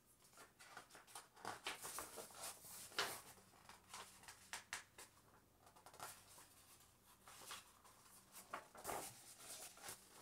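Faint rustling and crinkling of a paperback picture book's paper pages as they are handled and turned, in short irregular bursts, loudest about three seconds in.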